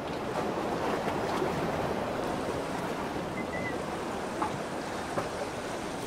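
Lake waves washing in: a steady, unbroken rush of surf.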